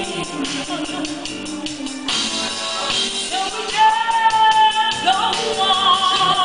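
Two women singing into microphones over keyboard accompaniment with a steady beat, holding long notes that bend in pitch.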